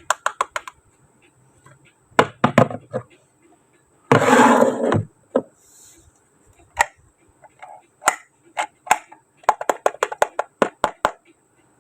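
Small plastic toy-kitchen pieces clicking and tapping together in quick runs of sharp clicks. About four seconds in there is a noisy rustle lasting about a second.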